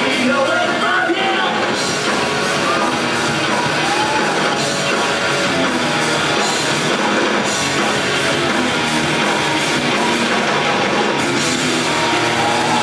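Live rock band playing, with guitars and drums filling the mix and a sung vocal line coming in near the start, around the middle and again near the end.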